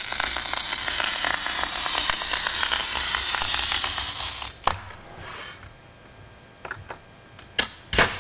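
Hand glass cutter scoring a sheet of mirrored glass along a straightedge: a continuous, high, scratchy hiss of rapid fine ticks for about four and a half seconds, which stops suddenly. After it come a few sharp knocks, the loudest about a second before the end.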